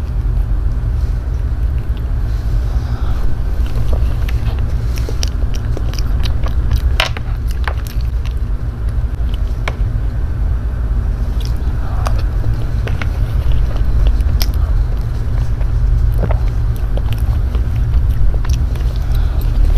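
Close-miked eating of a soft mango cream cake: a plastic spoon scooping with scattered sharp clicks, with chewing and mouth sounds, over a steady low rumble.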